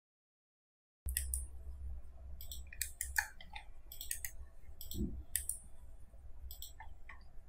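Irregular clicks of a computer mouse and keyboard keys, starting about a second in, over a faint low steady hum.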